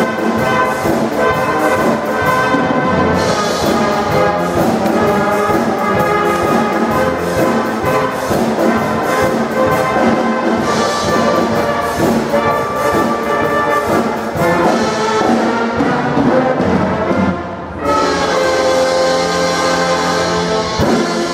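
Youth wind band playing live: saxophones, trumpets, trombones and tuba over a drum kit. There is a short break in the playing about three-quarters of the way through before the band comes back in.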